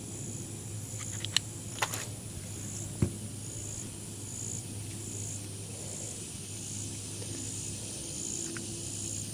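Crickets chirping in a steady, even rhythm, about three chirps every two seconds over a continuous high trill. A few light clicks and one knock, about three seconds in, come from the brass black-powder flask and measure being handled and set down.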